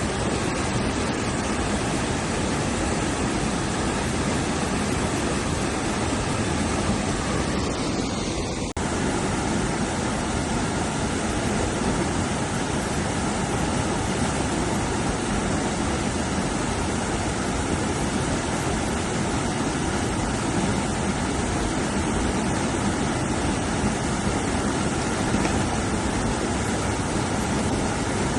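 Rushing river water running fast and steady, with a brief break about nine seconds in.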